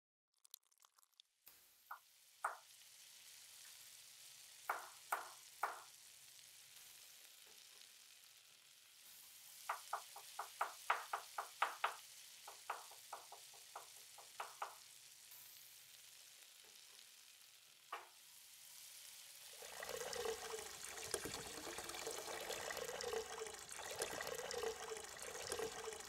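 Diced radish sizzling faintly in sesame oil in a pot, with a few light clicks. Then a chef's knife slicing garlic cloves on a cutting board in a quick run of taps. From about 20 seconds in, water is poured from a stainless pitcher into the pot, a louder splashing pour.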